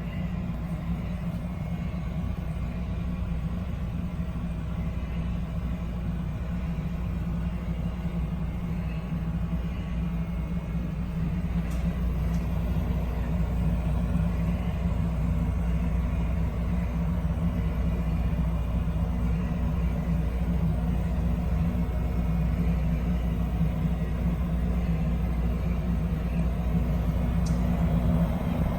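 Rheem Platinum hybrid heat-pump water heater running: a steady low hum from its compressor and fan, rising slightly about halfway through. It sounds like a dorm-room refrigerator, maybe a little softer.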